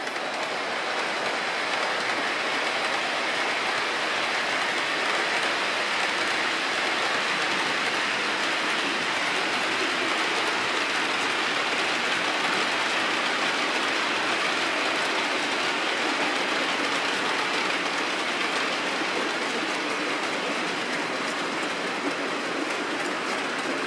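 OO gauge model freight train of covered hopper wagons rolling along the track: a steady rattling rush of metal wheels on rail, with no engine note.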